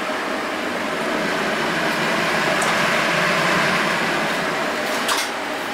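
Kitchen exhaust fan running over a gas stove, a steady whirring hiss with a faint hum. One short metal clink about five seconds in.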